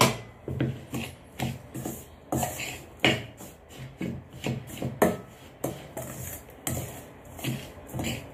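Steel spoon stirring dry, coarse ground spice mix in a stainless steel kadai, scraping through the masala and clinking against the pan about once or twice a second. A sharp clink comes at the start and another about five seconds in.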